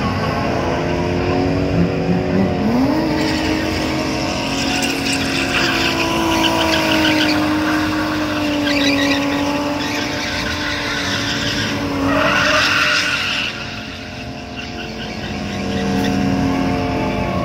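Drift car's engine revving up sharply about three seconds in and then held high while the tires squeal in bursts, about five seconds in and again around twelve seconds. The engine then eases off briefly before it picks up again.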